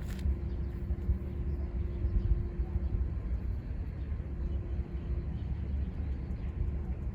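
A car driving: steady low road and engine rumble, with a faint steady hum that drops out for a while in the middle.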